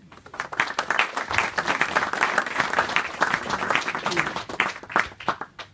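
Audience applauding. The clapping builds quickly and dies away near the end.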